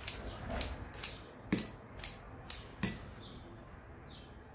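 A quick run of light clicks and taps, about two a second for some three seconds, from kitchen utensils and dishes being handled, then quiet.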